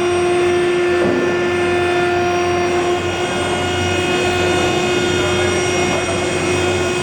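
Steady, loud roar of a TR8 tilting rotary aluminium-melting furnace running during its melt, with a low hum and several constant whining tones over it.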